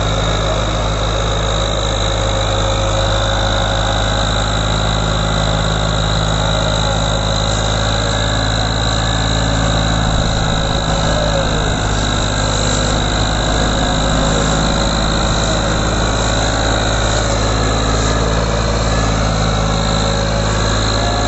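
Ford 3610 tractor's three-cylinder diesel engine running steadily under heavy load, pulling an overloaded sugarcane trolley. A steady high whine sits over the engine note.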